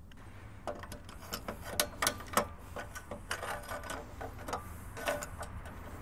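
Irregular metallic clicks and clinks of steel parts being handled and adjusted on a homemade bandsaw sawmill's blade guide assembly, the loudest few coming around two seconds in.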